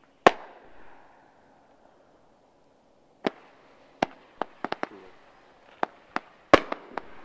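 Fireworks: an aerial shell bursts with one loud bang about a quarter second in, its report fading off. From about three seconds in comes a quick run of sharp reports as a volley of red-tailed shots launches, with a faint hiss between them and the loudest bang near the end.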